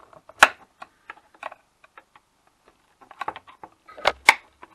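Flat pry tool clicking and scraping against the metal lid and case of a Seagate hard drive as the lid is worked loose. Scattered light clicks, with a sharp click about half a second in and two more in quick succession near the end.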